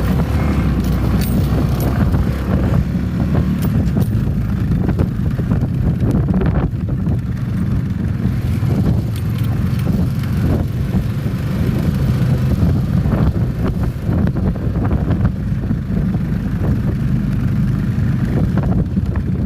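Four-wheeler (ATV) engine running steadily while riding, with wind rumbling on the microphone and scattered rattles and clicks.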